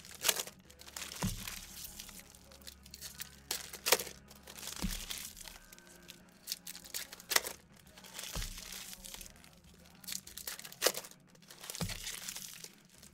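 Baseball card pack wrappers being torn open by hand one after another, a crinkly ripping about every three and a half seconds. Each rip is followed about a second later by a soft thump.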